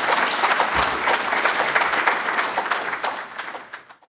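Audience applauding, a dense patter of many hands clapping that fades away near the end and then cuts off.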